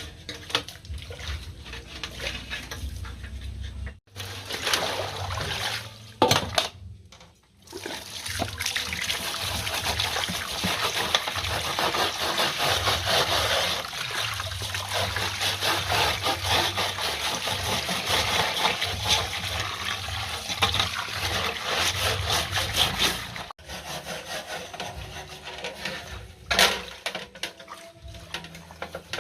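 Water running and splashing while parts are washed, a dense, even rush that breaks off sharply a few times where the footage is cut.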